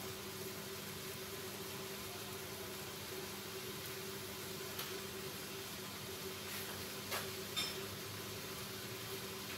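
Chili paste simmering in oil in a frying pan, with a few faint pops in the second half, being cooked down until the oil separates. A steady low hum runs underneath.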